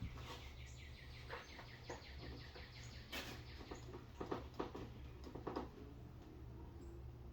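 Faint handling noise of a foam RC jet's airframe parts being fitted together: scattered light taps and clicks, a few louder ones about three to five and a half seconds in, over a steady low hum.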